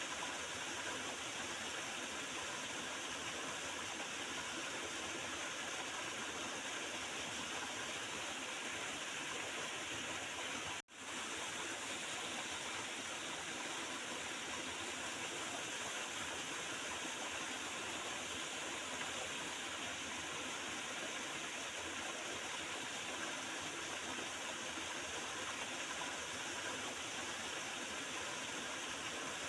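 Water of a small river gurgling and rushing steadily. The sound cuts out briefly once, about eleven seconds in.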